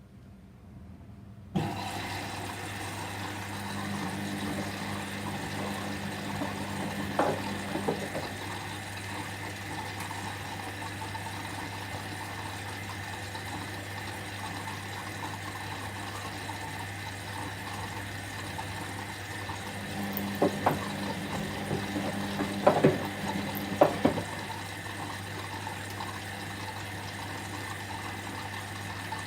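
Whirlpool washing machine filling with water: the inlet valve clicks open about a second and a half in, then water runs steadily into the drum over a low hum. A few light knocks come at two moments.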